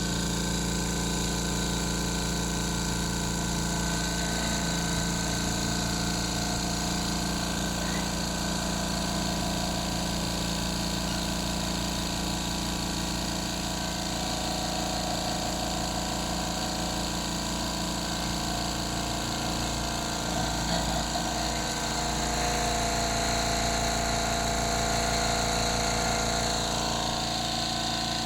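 Mitsushi XH30L 600 W silent-type diaphragm air compressor running steadily, its motor and pump filling the emptied 30-litre tank.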